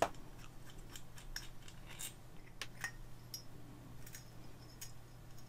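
Small metallic clicks and light scrapes as the wound stator of an old phonograph induction motor is worked out of its metal housing by hand, with one sharper click at the start, over a faint steady low hum.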